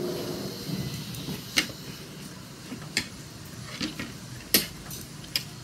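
Metal spoons and forks clicking and scraping against plates while eating fried rice: several sharp, irregular clinks, the loudest about four and a half seconds in.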